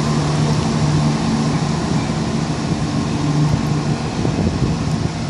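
Class 170 Turbostar diesel multiple unit pulling away from the station, its diesel engines giving a steady low hum.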